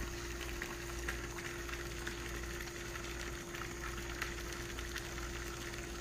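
Microwave oven running with a steady hum while it cooks an iPhone 6 inside, with a few faint clicks about one, two and four seconds in.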